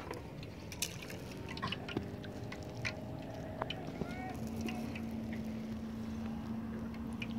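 Quiet ambience aboard a small fishing boat: scattered small clicks and knocks, with a steady low hum coming in about four and a half seconds in.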